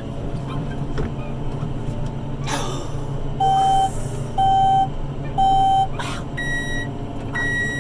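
Tractor cab electronics sounding alert beeps over the steady hum of the diesel engine: three even half-second beeps about a second apart, then two higher-pitched beeps near the end.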